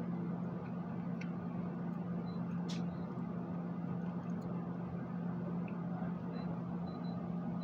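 Steady low mechanical hum, with a faint hiss and a few light clicks.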